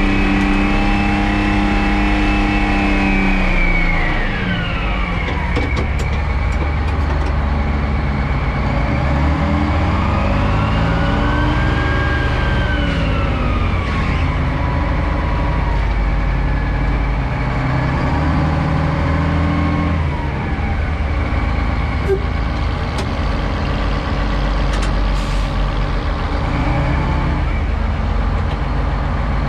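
Euclid rock truck's diesel engine heard from the cab on a ride, running steadily. It drops in speed about four seconds in, then revs up and back down a couple of times as the truck drives, with a few light clicks.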